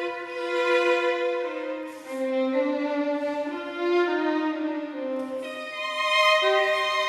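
Background music: slow, sustained violin melody with long held notes.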